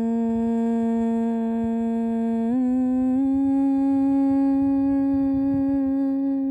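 A woman's voice holding one long vocal toning note, steady and loud, that steps up a little in pitch about two and a half seconds in and is held again at the new pitch.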